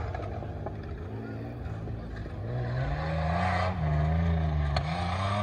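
Off-road 4x4 engine revving hard under load, its pitch rising and falling as the throttle comes on and off, growing louder from about halfway through.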